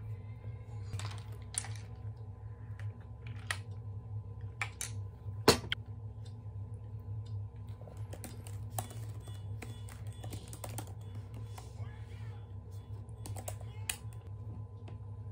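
Typing on a laptop keyboard: irregular light key clicks, with one louder click about five and a half seconds in.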